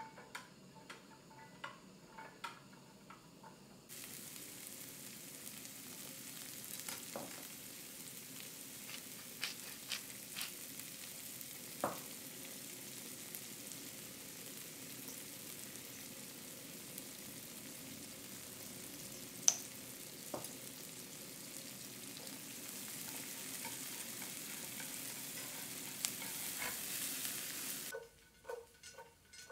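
Utensil clicks as chopsticks tip diced onion and carrot into a frying pan. About four seconds in, a steady sizzle starts as the vegetables fry in butter, with a few sharp taps of utensils against the pan, the loudest about two-thirds of the way through. The sizzle stops suddenly shortly before the end and is followed by a few light ticks.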